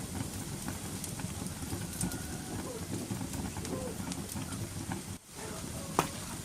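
Wood fire crackling in a fireplace: scattered sharp pops over a steady low rushing noise, with one loud pop near the end. The sound briefly drops out about five seconds in.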